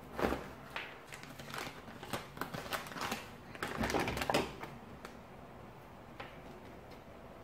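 Paper takeaway bag rustling and crackling as it is handled and opened, for about four and a half seconds. Then quieter, with one light tap near the end.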